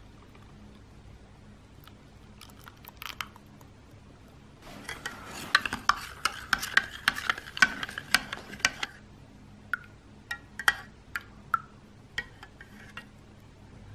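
Metal spoon stirring milk into beaten egg in a measuring cup. After a quiet start, rapid clinking and scraping against the cup runs for about four seconds, then comes a handful of separate taps.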